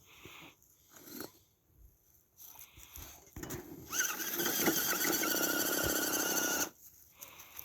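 Redcat Everest 10 RC crawler's electric motor and drivetrain whining under throttle for about three seconds, starting a little past halfway and cutting off suddenly, after a few faint ticks and knocks.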